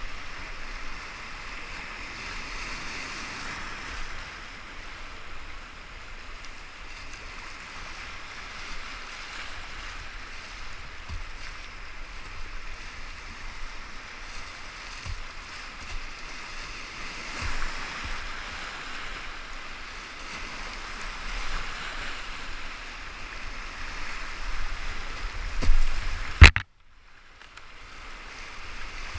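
Whitewater rapids rushing steadily, heard up close from a kayak on the river, with occasional dull low thumps. Near the end there is one sharp, loud knock, then the sound cuts out for about a second before the rushing water returns.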